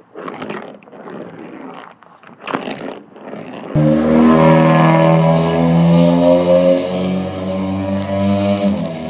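Small wooden toy engine's wheels rolling and scraping on a concrete floor as it is pushed. About four seconds in, much louder background music with held notes stepping through a melody starts and covers it.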